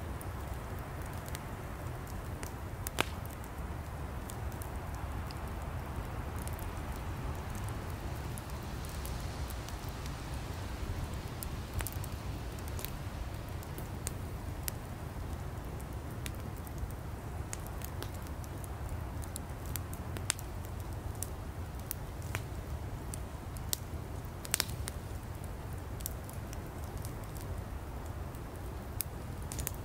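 Campfire of burning firewood: a steady low rumble of the fire with irregular sharp crackles and pops from the wood, a few of them louder.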